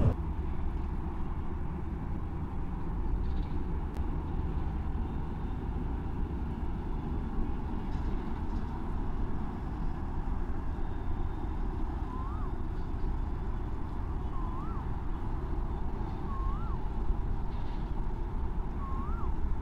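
An engine running steadily with a low rumble. From about twelve seconds in, a short rising-and-falling chirp repeats about every two seconds over it.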